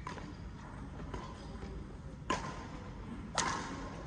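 Badminton rackets striking a shuttlecock in a rally: a few sharp smacks, the two loudest a little over a second apart in the second half, the last one the loudest, each with a short ring of hall echo.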